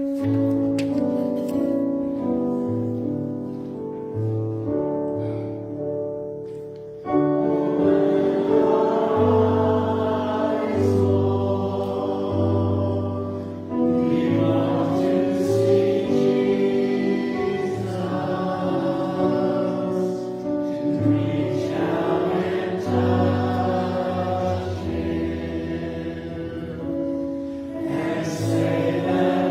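A hymn sung by many voices together over sustained organ chords. The chords begin alone, and the singing joins about seven seconds in.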